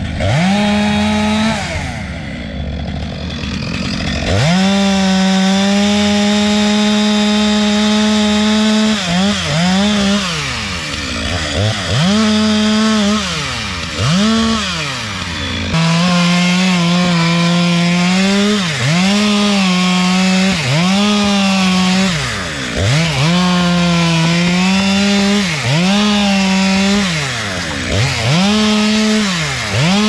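Stihl MS462 two-stroke chainsaw cutting through a felled tree trunk. About two seconds in it drops to a lower note, then climbs back to full throttle about four seconds in. From there its pitch falls and rises again and again as it works through the wood.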